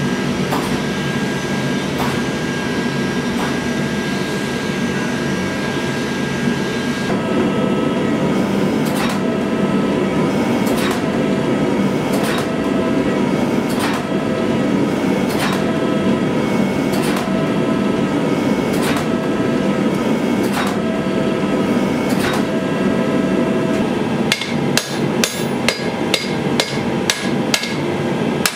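Gas forge running with a steady rushing noise while a steel sword blade heats, with a single metallic knock every second or two. About 24 seconds in, quick even hammer blows on the red-hot blade at the anvil begin, about two or three a second.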